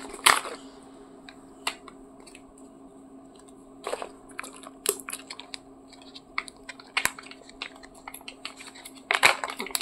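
Scattered small clicks, taps and crinkles of a toddler handling a small candy packet in her hands, with a few louder clicks about four and five seconds in and a short cluster near the end.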